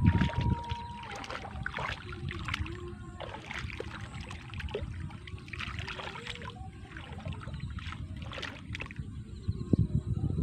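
Hands splashing and sloshing in shallow muddy water while groping for fish by hand. The splashes are irregular, loudest at the start and again near the end.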